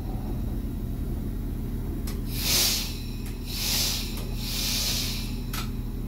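RA2 diesel railcar heard from the cab: the diesel engine hums steadily, and three short hisses of compressed air from the train's pneumatics come in the second half, with a few sharp clicks between them.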